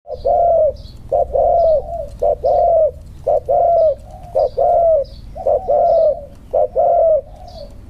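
Spotted dove cooing: a short note followed by a longer, arching coo, repeated steadily about once a second, seven times.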